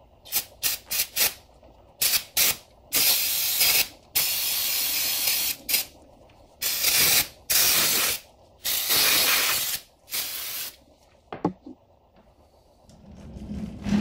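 Aerosol brake cleaner sprayed onto a Brembo brake caliper to clean it: a series of hisses, four quick squirts at first, then longer blasts of about a second each, stopping about eleven seconds in. A couple of clicks follow.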